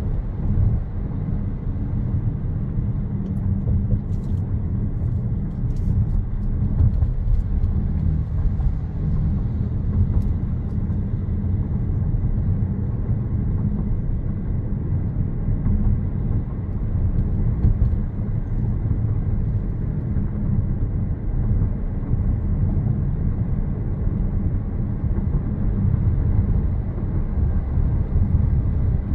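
Steady low rumble of a car driving along a road: road and engine noise, even in level throughout.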